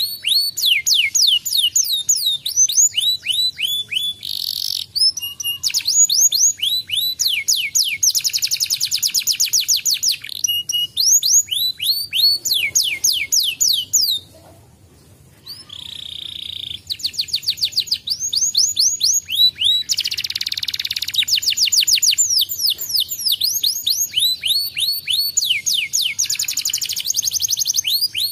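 Domestic canary singing a long song of fast trills, each made of rapidly repeated high falling notes, with a few buzzy rolls between them and a short break about halfway through.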